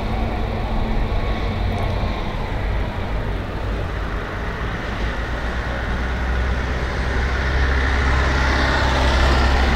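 Street traffic: a steady low engine drone with road noise, growing louder near the end as a vehicle draws closer.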